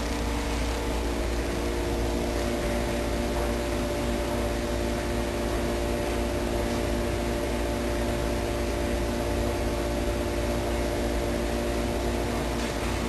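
Steady machine hum with several held tones over a low rumble and even hiss, unchanging throughout.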